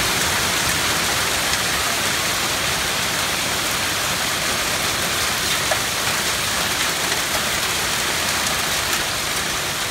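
Hail and heavy rain pelting down on pavement, parked cars and a wooden deck: a steady dense hiss with a few scattered small ticks of stones striking.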